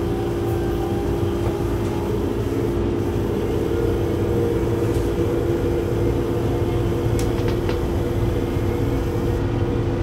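Cab noise of a Siemens EuroSprinter electric locomotive under way: a steady hum over the low rumble of running on the track, with a few light clicks about seven seconds in.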